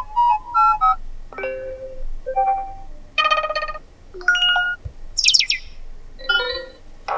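Built-in ringtones of a TCL Tab 10L tablet previewed one after another through its speaker: about seven short melodic snippets, each under a second and each in a different sound, with brief gaps between them. One about five seconds in is a quick run of high chirps.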